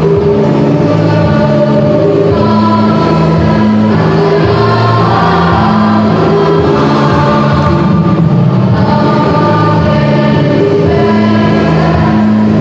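A high-school choir singing in harmony, several voice parts holding long notes together and moving to a new chord every second or so.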